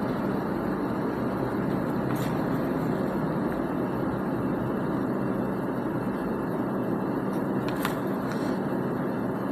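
Steady background rumble with a few faint ticks, about 2 s and 8 s in.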